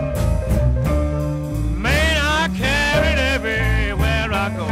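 Electric blues band playing, with bending, wavering lead notes over a steady bass and drum groove.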